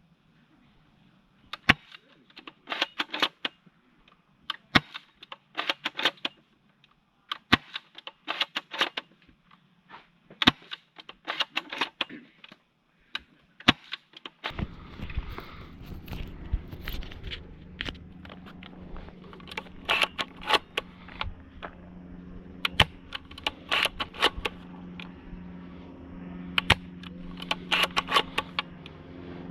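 Snow Wolf Kar98k spring-powered bolt-action airsoft rifle being cycled and fired again and again: groups of sharp mechanical clicks and snaps from the bolt working and the shots. About halfway through, a steady low hum comes in under the clicking.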